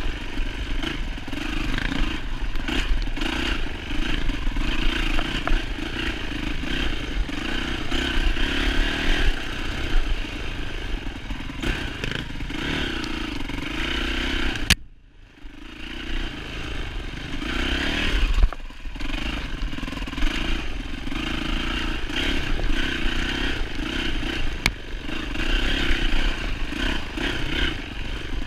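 2007 Yamaha YZ450F dirt bike's four-stroke single-cylinder engine running as it is ridden, its revs rising and falling continually. About halfway through, the sound cuts out abruptly for about half a second, then resumes.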